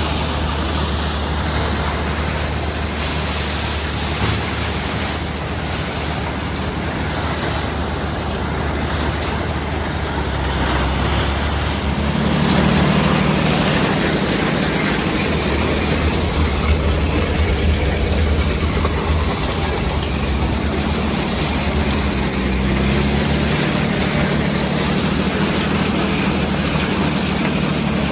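Farmall 460 tractor running under load as it pulls an Allis-Chalmers All-Crop 72 combine harvesting soybeans: a steady engine and machinery drone over a rushing noise. About twelve seconds in, the engine note rises a little and gets slightly louder.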